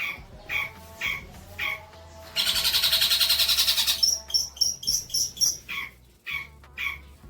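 Songbird calling in short, sharp chirps repeated about two a second, broken about two and a half seconds in by a loud, fast trill lasting about a second and a half. This is birdsong tutor material of the kind played to young long-tailed shrikes so they learn it.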